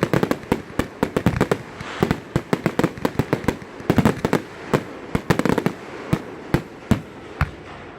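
Fireworks going off: a rapid, irregular string of bangs and pops that thins out to a few separate bangs near the end.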